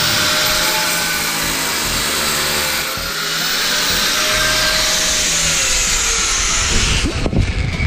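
Angle grinder with a cutting disc cutting into ceramic floor tile and mortar. It makes a loud, steady, high-pitched whine whose motor pitch dips under load. The whine breaks off about seven seconds in, followed by a few low thumps.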